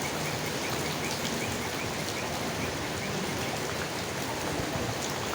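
Steady rain falling on leaves. A faint high chirp repeats about three times a second through the first half.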